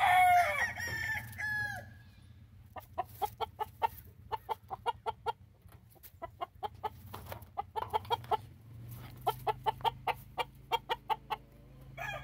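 Game chickens calling: the end of a rooster's crow falling in pitch in the first second or two, then runs of quick, short clucks at about four to five a second.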